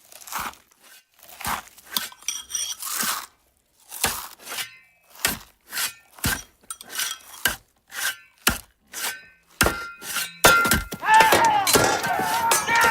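A series of separate sharp knocks and crunches, about two a second, some with a brief glassy or metallic ring, then, about ten seconds in, a louder dense clatter of breaking and shattering with many ringing pieces.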